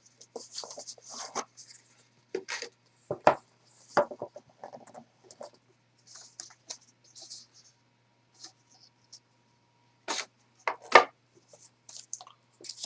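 Hands opening and handling a smartphone's cardboard retail box and its paper inserts: scraping, rubbing and light taps, with louder knocks about three seconds in and again near the end.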